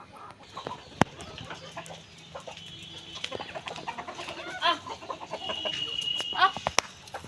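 Backyard desi chickens clucking, with a couple of louder calls that slide up and down in pitch. Scattered light clicks run through it, and a sharp knock comes about a second in and again near the end.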